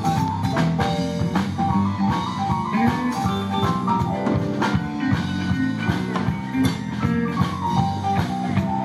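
Live band playing a blues shuffle: a Kurzweil stage piano, an electric guitar and a drum kit.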